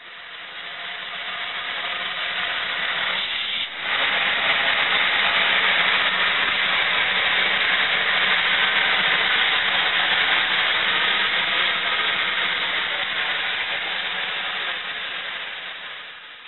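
Steam hissing steadily from a standing rebuilt Bulleid Battle of Britain class steam locomotive, 34053; the hiss jumps louder about four seconds in, stays loud, then dies away near the end.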